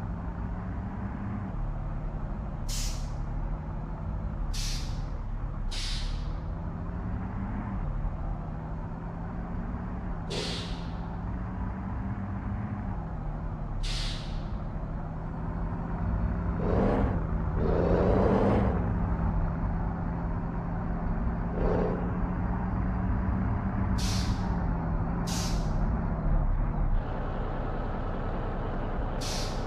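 Heavy truck's diesel engine running steadily, with short, sharp air-brake hisses about nine times. A longer, louder rush of noise comes a little past halfway.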